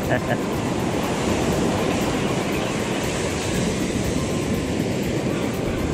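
Surf washing up on a sandy beach, heard as a steady rumbling noise.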